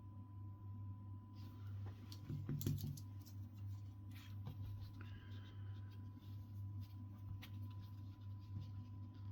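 Scratching and clicking handling noise, loudest about two and a half seconds in, over a faint steady high tone and a low hum.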